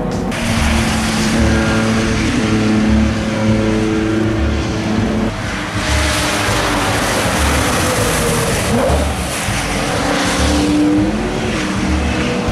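Engine of a classic open-top sports racing car running at speed on a wet track. It passes close about midway with a swelling rush of noise, then pulls away with its engine note still plain.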